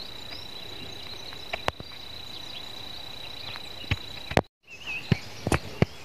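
An insect holding one steady, high-pitched trill, unbroken for about four and a half seconds, with a few sharp clicks over it. The trill cuts off suddenly. After a brief gap come short chirps and a quick run of clicks.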